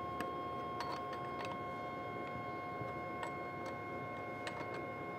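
A few faint, irregular metallic clicks as a scrench socket turns and tightens a chainsaw's guide-bar stud nuts, over a steady electrical hum.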